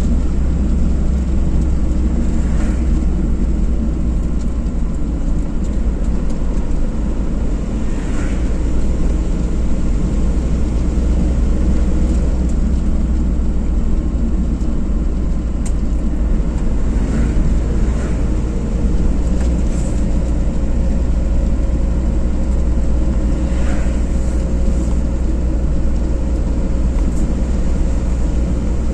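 Car driving at steady speed: a continuous low rumble of engine and tyre road noise, even throughout, with no words spoken.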